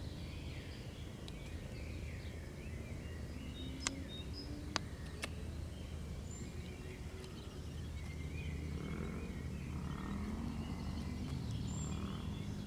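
Woodland ambience: scattered short bird chirps over a steady low rumble. Three sharp clicks come about four to five seconds in.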